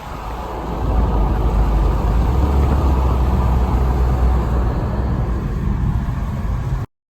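Car running, heard as a steady low rumble that swells about a second in and cuts off suddenly near the end.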